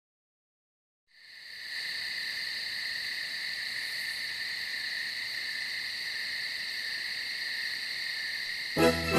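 Digital silence for about a second, then a steady high-pitched hiss fades in and holds evenly, with music starting near the end.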